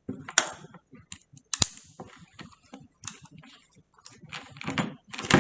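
Irregular clicks and clatter of an M16A2 training rifle's parts being handled while the lower receiver is reassembled, with one sharp click about a second and a half in and a quicker run of clicks near the end.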